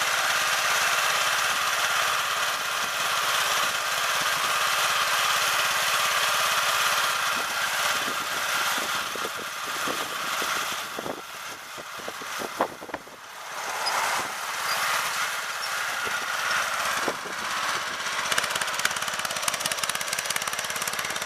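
Snapper LT11 riding lawn tractor's small engine running steadily with a rapid rattle as it drives with a plow blade fitted. A run of sharp knocks and clatter comes about halfway through, followed by a brief drop in level.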